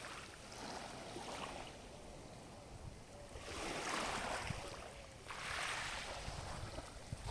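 Small sea waves washing onto the shore, three swells of surf rising and fading, with wind rumbling on the microphone.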